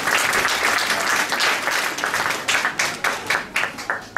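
Many hands clapping and striking in a dense, loud patter that thins into a few separate sharp strikes and stops near the end.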